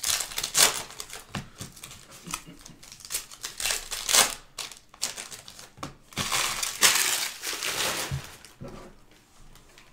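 Foil wrapper of a Panini Contenders football card pack crinkling in bursts as it is torn open and handled, loudest from about six to eight and a half seconds in.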